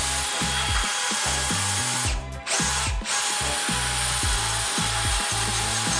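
Cordless drill running under load as its bit bores out a hole in a Miata rear suspension knuckle, steady apart from two brief stops a little after two and three seconds in. Background music with a beat plays underneath.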